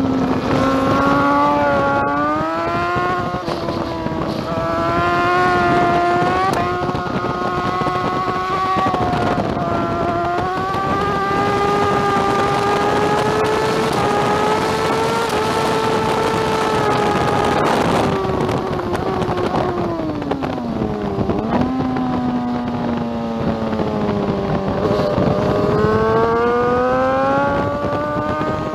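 2009 BMW S1000RR's inline-four engine at full race pace: revving up and upshifting a few times, pulling a long rising note down a straight, then dropping in pitch under braking with downshifts about twenty seconds in, before accelerating hard again near the end.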